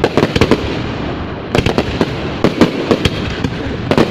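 Fireworks display: many sharp bangs going off in irregular clusters, a few close together, over a steady haze of further bursts.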